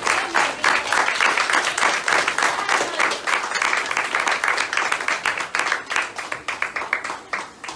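A small group clapping and applauding, thinning out to a few scattered claps near the end.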